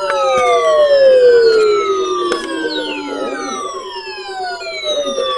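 Several overlapping siren tones winding down in pitch, each starting high and sliding slowly lower, one after another, over a steady pulsing drone.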